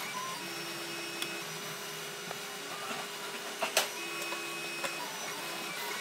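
Ender 3 3D printer running a print: its stepper motors hum in steady tones that switch on and off and shift as the moves change. A few sharp clicks from screw and screwdriver work come over it, the loudest nearly four seconds in.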